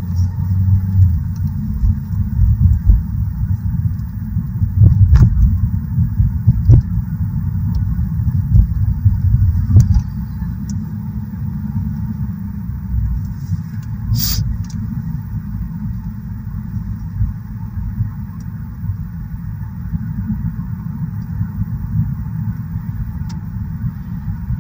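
Low, steady road and engine rumble inside a moving car, heavier for the first ten seconds and then quieter, with a few faint clicks and one brief high-pitched sound about fourteen seconds in.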